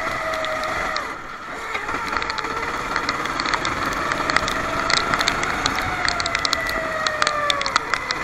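Racing kart engine running on track, its pitch sagging and level dipping about a second in as it comes off the power, then picking up again before sagging once more near the end. Scattered sharp clicks sound over it.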